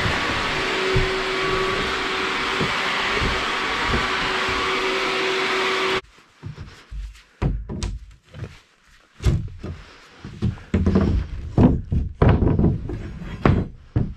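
Canister wet/dry vacuum running steadily with the nozzle on a plywood subfloor, switched off suddenly about six seconds in. Then a series of irregular wooden knocks and thuds as a pry bar is worked in the seam between the plywood floor sheets.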